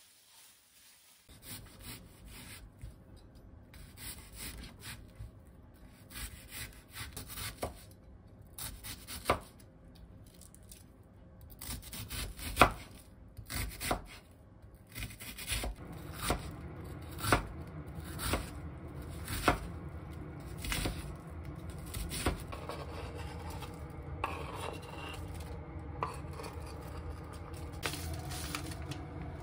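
Kitchen knife chopping onion on a wooden cutting board: sharp single chops at uneven spacing, about one a second at the busiest, with quieter slicing and rubbing between.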